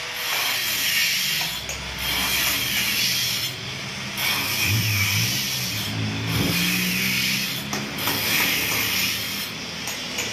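Corded electric angle grinder cutting into a concrete floor: the motor runs steadily while the harsh hiss of the disc in the concrete comes in passes, dropping out briefly about every two seconds.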